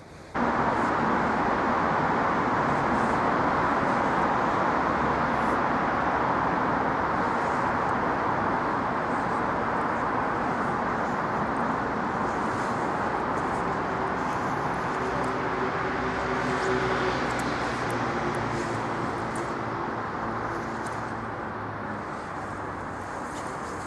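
Steady outdoor street background noise, an even hiss that starts abruptly and slowly fades, with a faint low hum for a while in the second half.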